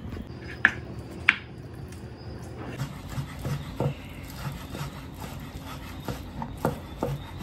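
Chef's knife cutting raw chicken breast and chopping bacon on a plastic cutting board: irregular soft knocks of the blade meeting the board, with two sharp, louder clicks about a second in.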